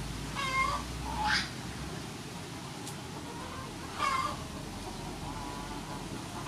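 Three short bird calls, about half a second, a second and a quarter, and four seconds in, over a steady low background noise.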